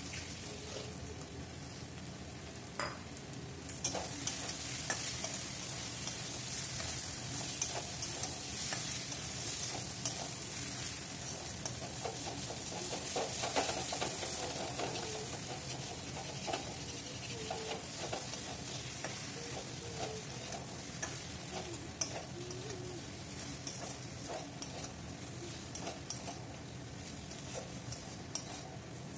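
Cabbage, pea and potato curry sizzling as it is fried down in a metal kadai, with a steel spatula scraping and clicking against the pan as it is stirred. The sizzle grows louder about four seconds in.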